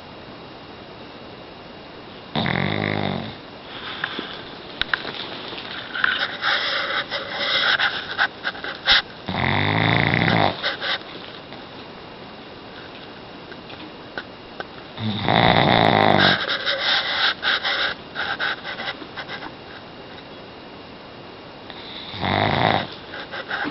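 Pug snoring in its sleep: four loud snores, one every six to seven seconds, with quieter snuffling, crackly breaths between them.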